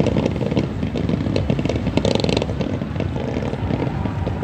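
Fireworks crackling and popping in a dense, rapid stream, with a brighter flurry about two seconds in.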